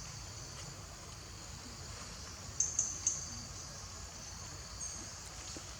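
Steady, high-pitched insect chorus, with three short, sharp high chirps in quick succession about two and a half seconds in.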